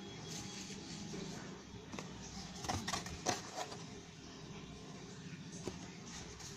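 Hands handling a cardboard model-kit box and paper, with a few light knocks and taps about three seconds in, over a steady low hum.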